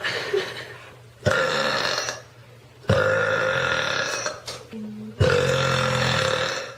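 A girl belching loudly, three long drawn-out burps in a row, each starting suddenly and holding a steady pitch.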